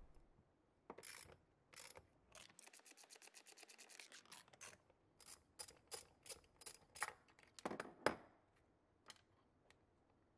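Faint socket ratchet clicking quickly for about two seconds as it backs off a nut on a rusty steel banana-seat pan, then scattered light metal clicks and scrapes as the socket and nut are turned by hand.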